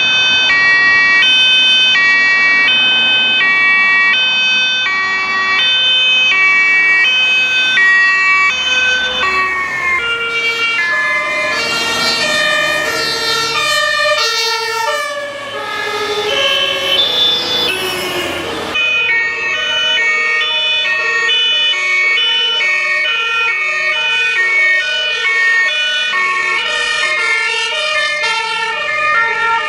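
Fire engine two-tone siren alternating evenly between a high and a low note. Midway several siren tones overlap and slide downward, then about 19 seconds in it changes abruptly to another two-tone siren alternating faster.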